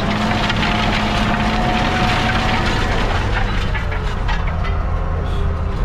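JCB Fastrac 3220 tractor heard from inside the cab while pulling a harrow fast across ploughed ground. The diesel engine drones steadily over a constant clatter of rattles and knocks, with a higher whine that fades out about halfway through.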